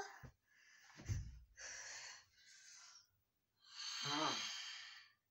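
A girl's breathy huffs, then a strained, breathy growl about four seconds in that falls in pitch. A soft low thump comes about a second in.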